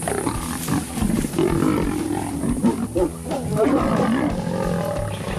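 Lions growling continuously as a pride attacks a leopard in a fight.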